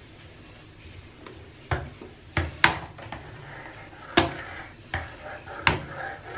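Plastic squeeze bottle of toilet descaler gel being squeezed and handled over a bathtub, giving about half a dozen sharp, irregular clicks and knocks.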